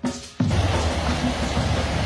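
Background music with a drum beat. About half a second in, a steady rushing noise comes in over it.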